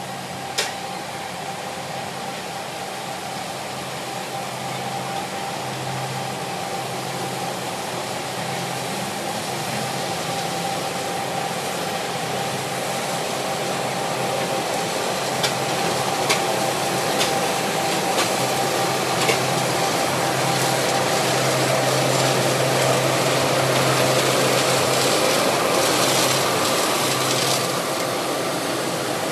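Engine-driven machinery running steadily with a continuous drone and a low hum, slowly growing louder. A few sharp metallic clicks come in about halfway through.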